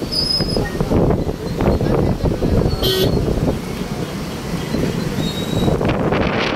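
Road traffic passing close by: cars driving past with engine and tyre noise, a short horn beep about three seconds in, and wind buffeting the microphone near the end.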